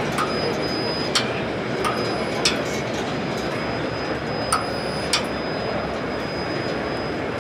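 Rollover car wash gantry running its cycle over a car: a steady rush of machine noise with a faint thin whine and scattered sharp clicks and knocks.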